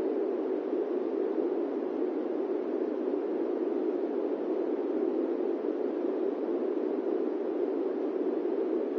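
Steady fan noise: an even, low whoosh that does not change.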